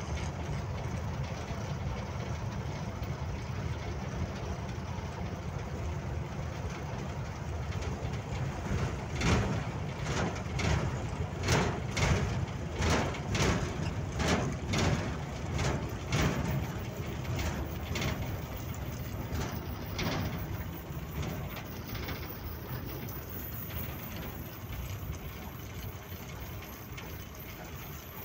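Truck engine and road noise running steadily inside the cab. Through the middle comes a run of a dozen or so thumps, about two a second, as the tyres cross rumble strips, spacing out as the truck slows for the toll plaza.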